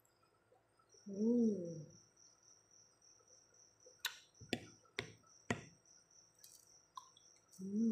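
A woman hums a short, rising-and-falling 'mmm' while eating, about a second in and again at the very end, with about four sharp eating clicks in the middle. A cricket chirps steadily in the background from about a second in.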